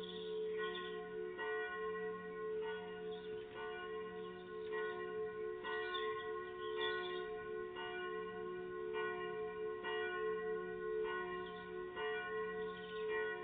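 Church bells ringing in a continuous peal, several bells struck over and over.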